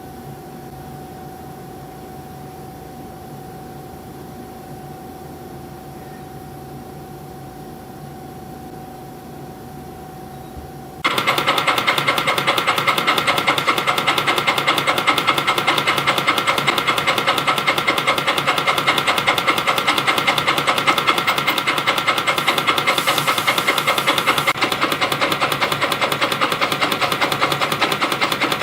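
CNC spring-coiling machine forming conical compression springs from 0.4 mm wire. It hums quietly with a steady tone at first, then about eleven seconds in it starts with a loud, fast, even mechanical rattle that keeps going.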